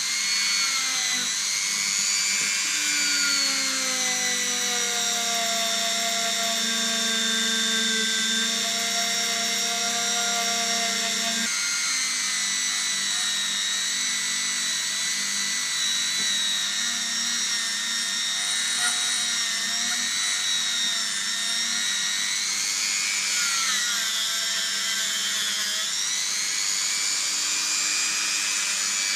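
Dremel rotary tool running at high speed with a small bit against a hollow hex socket, a steady high-pitched whine whose pitch wavers and dips now and then as the bit works the metal.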